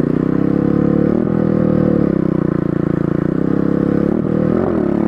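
Pit bike engine running steadily under way, its pitch dipping briefly and picking back up a few times as the throttle is eased and reopened.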